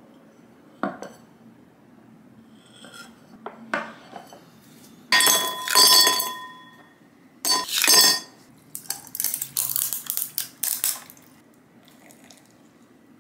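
Ice cubes dropped into a tall glass tumbler in two loud clattering lots, the glass ringing, followed by a run of quicker, lighter clinks as more ice goes in. A single knock about a second in, as a plate or glass is set down on the wooden counter.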